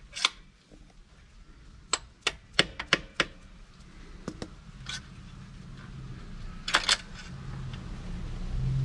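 Sharp metallic clicks and taps as a KTM dirt-bike footpeg is taken off: a screwdriver levered against the footpeg spring while the steel pivot pin is worked out of its mount, about a dozen separate clicks with a quick cluster near the end. A low rumble builds underneath through the second half.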